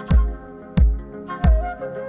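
Live electronic-acoustic band music: a deep kick drum beating steadily, three beats at about 0.65 s apart, under sustained pitched tones, with one melodic tone bending up about halfway through.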